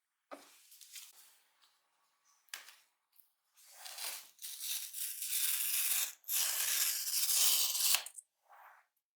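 Packaging of an Apple MacBook Air box being handled and opened. A few short scrapes and rustles come first, then two long stretches of paper wrapping being peeled and torn away, the second one loudest.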